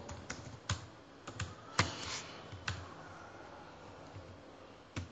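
Typing on a computer keyboard: about eight separate keystrokes in the first three seconds, one near the two-second mark the loudest, then a pause and one more keystroke near the end.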